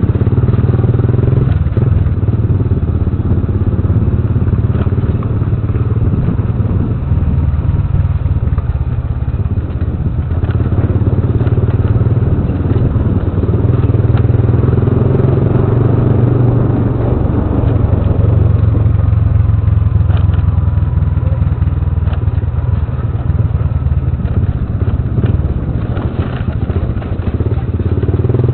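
Motorcycle engine running at low speed, its note swelling and easing a few times with the throttle. Scattered clatter and knocks from the bike jolting over a rough, broken, wet road.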